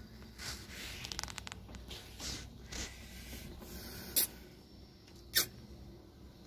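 Rustling handling noise inside a car cabin, with a brief run of faint clicks about a second in and two sharp clicks at about four and five and a half seconds.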